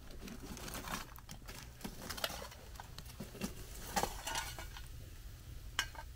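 Metal fireplace tongs clinking and scraping as hot wood coals are lifted off a cast-iron Dutch oven lid, over the crackle of the wood fire beneath. Scattered sharp clicks and knocks throughout, a few louder ones about four seconds in and near the end.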